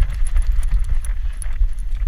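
Handling noise from a camera strapped to a small dog's back as the dog moves: a dense, uneven low rumble of the mount jostling, with many small high clicks.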